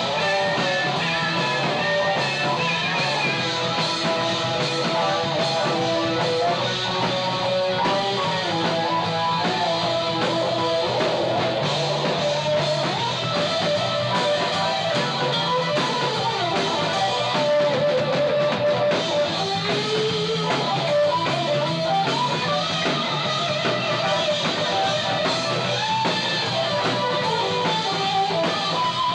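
A live rock band playing, with electric guitar over a drum kit.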